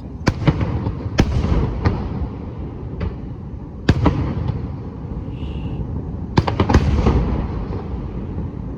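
Aerial fireworks shells bursting in a string of sharp bangs, each trailed by a rolling echo. A quick cluster of bangs comes about six and a half seconds in.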